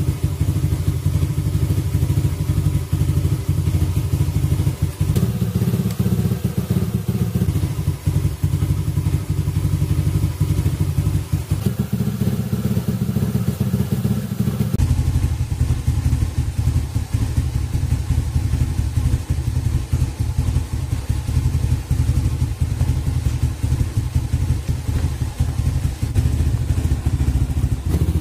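Motorcycle engine idling steadily, a fast even run of exhaust pulses. Its tone shifts abruptly a few times, about 5, 12 and 15 seconds in.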